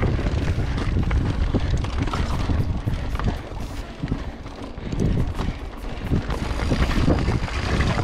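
Wind buffeting the camera microphone over the crunch of an Orbea Oiz mountain bike's tyres on a loose, rocky trail descent, with quick clicks and rattles from the bike over the rocks. It eases off for a second or two about halfway, then picks up again.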